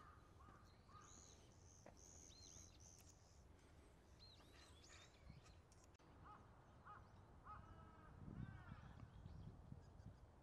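Faint calls and chirps of several wild birds, short high-pitched notes overlapping one another, over a low steady outdoor rumble that grows a little stronger about eight seconds in.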